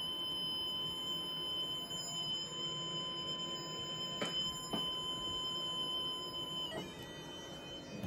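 Arduino tone generator sounding a steady 1 kHz electronic tone with a higher overtone, set to 1000 Hz. The tone cuts off a little under seven seconds in; two light knocks come about halfway through.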